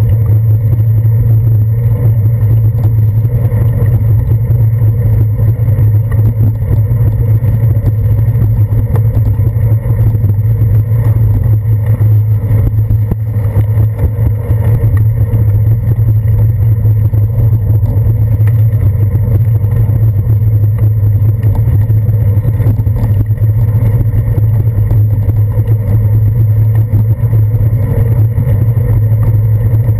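Loud, steady low rumble of riding a bicycle along a wet paved path: wind and road vibration picked up through a handlebar-mounted GoPro in its housing.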